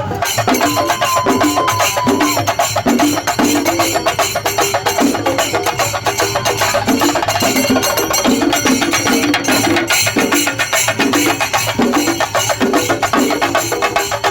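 Loud festival percussion ensemble drumming rapidly with sharp stick strokes, while a wind instrument plays short repeated melodic phrases over it. A brief thin whistle-like tone sounds in the first two seconds.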